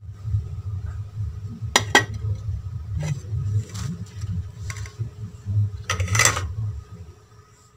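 A few sharp metal clinks of a utensil against a pot of sambar: two close together about two seconds in, fainter ones after, and a longer one about six seconds in. A steady low rumble runs underneath.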